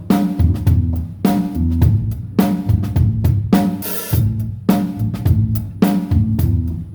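Kick drum and bass guitar playing a steady groove together as a sound check of their balance, with light cymbal or hi-hat strokes and a short cymbal wash about four seconds in.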